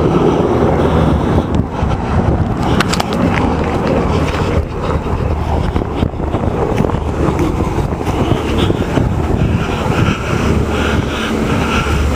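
Helicopter flying overhead: a steady low drone, mixed with wind rumbling on the microphone.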